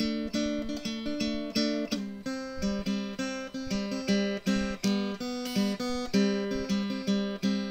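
Background music: an acoustic guitar strummed in a steady rhythm, about three strums a second.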